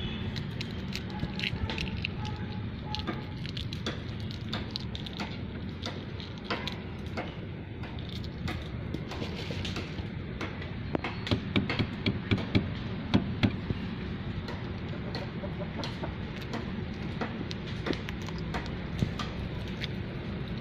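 Chickens clucking in the background, with sharp clicks and cracks from hard-boiled eggshells being broken by hand. The loudest run of cracks comes near the middle.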